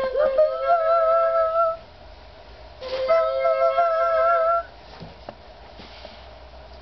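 A small toy wind instrument blown twice, each blast two notes sounding together with a slight wavering pitch and lasting about a second and a half.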